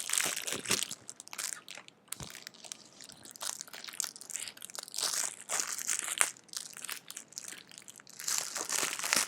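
Packaging crinkling and crunching as it is handled during a cube unboxing: irregular rustles, louder near the start and again near the end.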